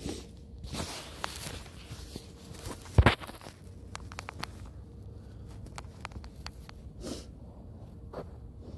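Handling noise as a camera is set down on the ground close to the microphone: a loud thump about three seconds in, then a run of light clicks and soft knocks, with footsteps nearby.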